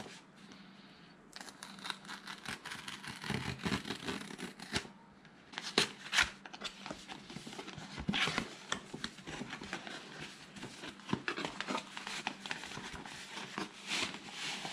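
Hands peeling a paper seal off a camera's cardboard box and working the packaging open: rustling, scraping and tearing with many sharp clicks, starting about a second in.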